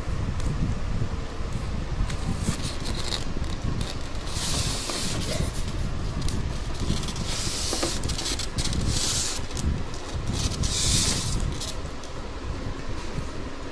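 Cardboard box and styrofoam packaging being handled, rustling and scraping in several bursts of about a second each over a steady low rumble.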